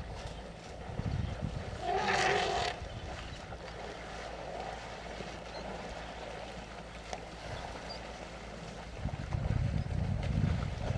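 Wildlife waterhole ambience: a steady low rumble with one short, loud animal call about two seconds in, and the low rumble swelling near the end.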